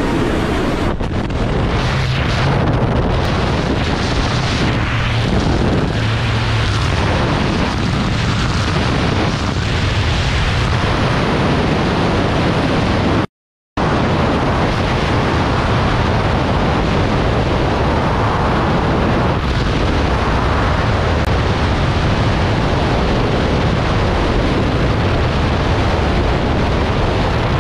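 Loud, steady rush of wind from a combat freefall jump, buffeting the microphone of a camera worn by a jumper. The sound cuts out for about half a second near the middle.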